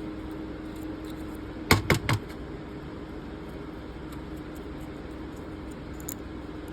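Three quick knocks close together about two seconds in, over a steady low hum.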